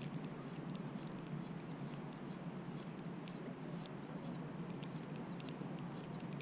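A small bird chirping short, arched notes about once a second, stronger toward the end, over a steady low rumble with scattered faint ticks.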